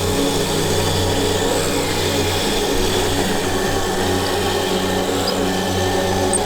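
Kyosho Blizzard SR radio-controlled tracked snow vehicle running, its small electric motor and gearbox whirring steadily with brief dips in speed.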